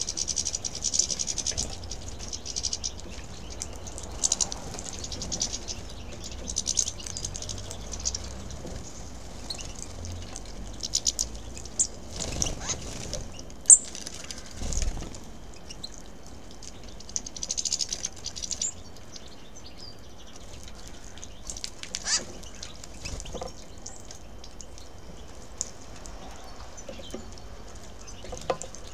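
A flock of finches at a seed feeder, European goldfinches and hawfinches, giving repeated bursts of high twittering and sharp chirping calls, with brief wing flutters as birds come and go.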